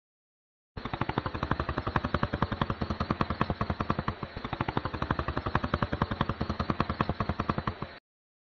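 Shoebill clattering its bill: a rapid, machine-gun-like run of hard clacks, about ten a second, that starts suddenly, falters briefly midway and stops abruptly.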